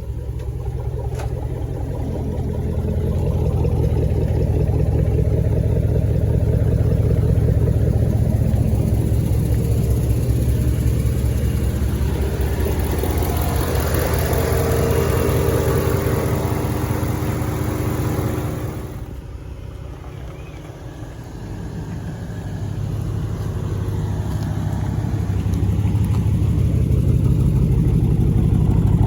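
Dodge Durango's 5.7 L Hemi V8 running through newly fitted aFe shorty headers and a cold air intake. It builds in level over the first few seconds and holds strong, drops off sharply about 19 s in, then builds again toward the end.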